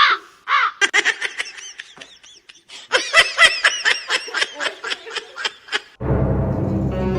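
Rapid, high-pitched bursts of laughter, many short rising-and-falling peals in quick succession. Music with a steady low bass comes in near the end.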